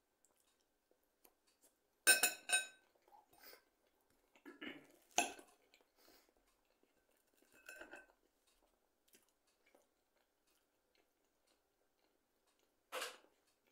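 Metal fork clinking and scraping against a plate in separate short strokes, the loudest a ringing clink about two seconds in, with more clinks around five seconds and near the end.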